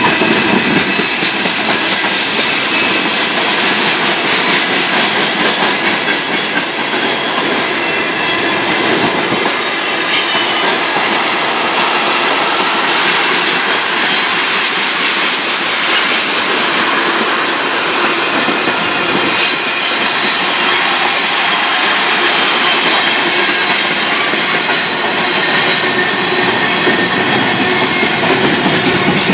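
Mixed freight train of tank cars, boxcars and covered hoppers rolling past at close range: loud, steady rumble and clatter of steel wheels on the rails, with thin high-pitched wheel squeal running through it.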